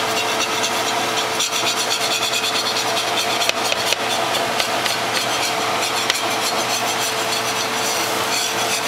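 Batter sizzling and crackling on a hot greased griddle, with a steady hum underneath.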